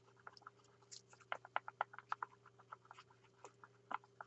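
Stirring stick clicking and scraping against the inside of a small plastic cup as colour is stirred into mixed resin: a run of quiet, irregular ticks, several a second.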